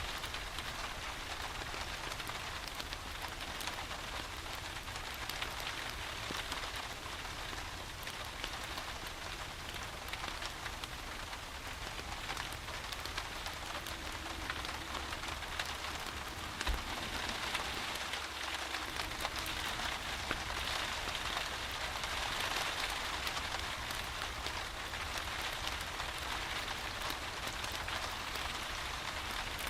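Steady rain falling, an even hiss with many scattered sharp drips and ticks over a low rumble, growing a little heavier about two-thirds of the way through.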